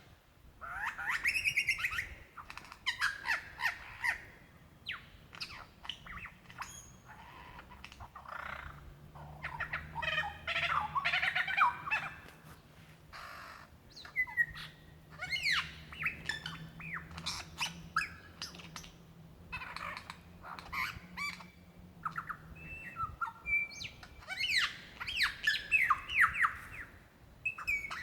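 Male superb lyrebird singing its courtship song: a long, varied run of sharp calls, quick chattering trills and sweeping whistles, much of it mimicry of other birds.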